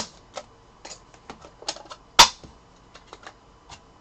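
Hard plastic trading-card holders clicking and clacking against each other and on the tabletop as they are handled and stacked. It is an uneven string of sharp clicks, the loudest right at the start and about two seconds in.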